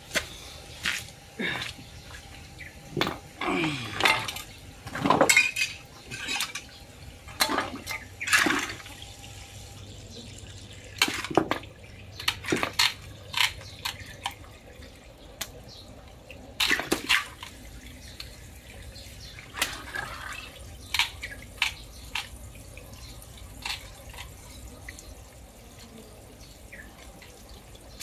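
Scissors and a knife snipping and scraping at a large silver carp on wet concrete: an irregular string of sharp clicks and splashes, busiest in the first half, with water dripping and trickling between them.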